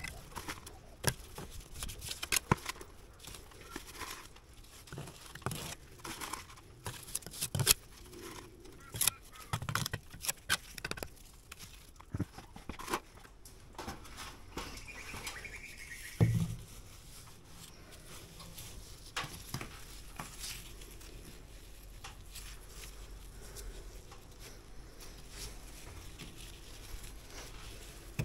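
Trowel and brick tapping and scraping as a replacement face brick is knocked down into its mortar bed: many short sharp clicks and knocks, busiest in the first half, with one heavier knock a little after halfway, then only the odd click.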